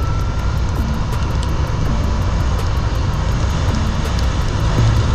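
Heavy wind buffeting and road rush on the microphone of a Tork Kratos R electric motorcycle accelerating hard at full throttle. There is no engine note, only a dense low rumble that grows slightly louder near the end.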